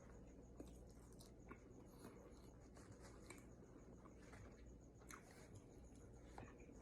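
Near silence with faint, scattered mouth clicks and soft chewing from someone eating a taco close to the microphone.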